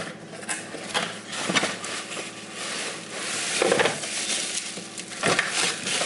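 Bubble wrap and plastic packaging crinkling and rustling, with many small clicks and knocks against the cardboard box, as a bubble-wrapped car vacuum cleaner is lifted out.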